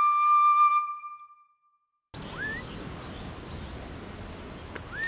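Flute music that ends about a second in, a moment of silence, then steady outdoor background noise with two short rising bird calls, one after the silence and one near the end.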